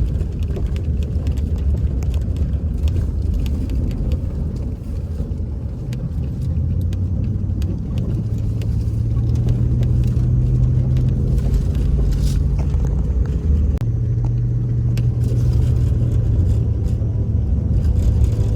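Pickup truck driving: engine and road noise as a steady low drone, with the engine hum shifting a couple of times.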